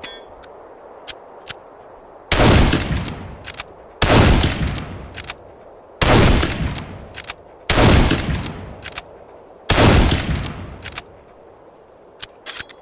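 Mauser Gewehr 98 bolt-action rifle (7.92×57mm) firing five shots about two seconds apart. Each shot rings out in a long, fading echo, with short sharp clicks in the gaps and before and after.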